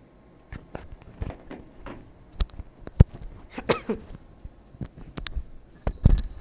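Irregular clicks and knocks of objects being handled, the sharpest about three seconds in, with a brief wavering pitched sound just after it.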